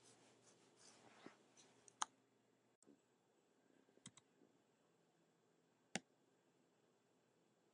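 Faint clicks at a computer while it is worked: a soft rustle in the first couple of seconds, then a few sharp, separate clicks about two seconds apart; otherwise near silence.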